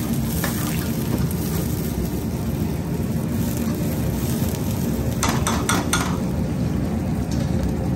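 Garlic and spices frying in oil in a steel frying pan over a gas burner, under a steady low kitchen rumble. About five seconds in, a metal ladle clinks against the pan four times in quick succession.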